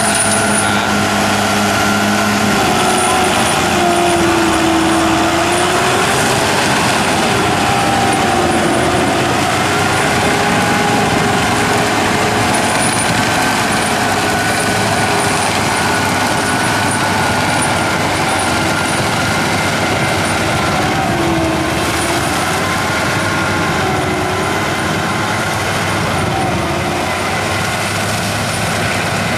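Tractor diesel engine working steadily under load while pulling an FAE CH-45 strip-tillage implement through a sugarcane field; its pitch sags and recovers gently as the load changes.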